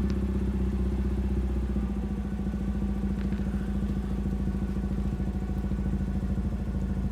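Mazda RX-8's twin-rotor Renesis rotary engine running through a Cobra Sport cat-back exhaust, held at a steady engine speed with no rise or fall in pitch. This fits the steady hold of a track-day static noise test at three-quarter revs.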